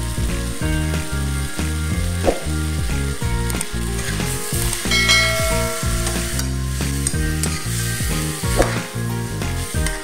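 Chicken pieces sautéing with garlic, onion and tomato in an aluminium wok: steady sizzling, with a metal spatula scraping and turning the pieces. A sharp knock of the utensil on the pan comes about two seconds in and again near the end.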